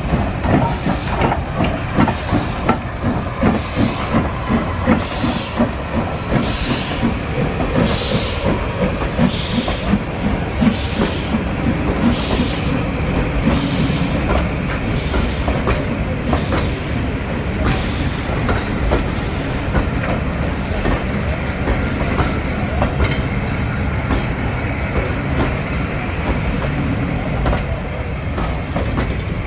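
Somerset & Dorset Joint Railway 7F 2-8-0 steam locomotive 53808 pulling its train away with an even, regular chuff that fades out about two thirds of the way through as the engine draws off. The coaches rumble and clatter past on the rails throughout.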